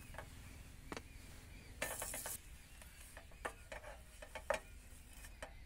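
Wooden spatula scraping and tapping faintly in a small non-stick camping pan as a pav bun is toasted and turned, with scattered light clicks and a half-second scrape about two seconds in.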